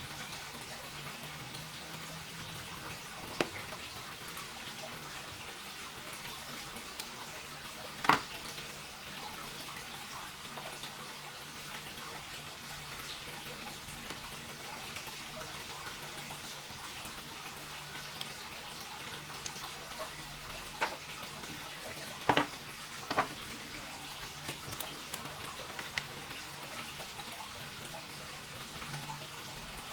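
Steady hiss with a few scattered sharp clicks and taps from laptop parts being handled, the loudest about eight seconds in and a close pair a little past twenty-two seconds.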